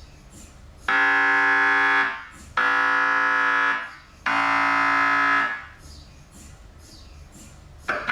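Philips Achieva 3T MRI scanner's gradient coils running a scan sequence: three loud buzzing tones of steady pitch, each about a second long with short gaps between. A faint ticking at about two a second runs around them, and a short blip comes near the end.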